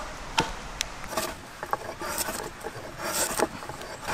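Hand tools working a fresh ash log: scattered light knocks and clicks on wood, with two short scraping strokes about two and three seconds in.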